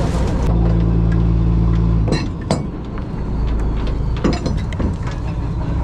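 Fishing boat's engine running with a steady low drone, which drops away about two seconds in. Several sharp clinks and knocks of gear on deck follow.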